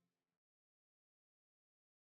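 Silence: a faint tail of fading background music in the first moment, then a digitally silent soundtrack.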